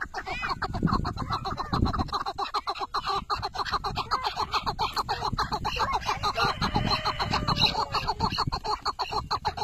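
Caged chukar partridge of the Iraqi type calling: a long, unbroken run of rapid, repeated notes.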